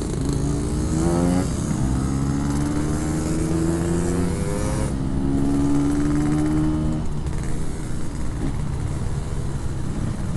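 Yamaha RX-King 135cc two-stroke motorcycle through a Packing Power PK1 modified exhaust, accelerating through the gears. The engine pitch climbs and drops back at each upshift, about 1.5 and 5 seconds in, then evens out after about 7 seconds.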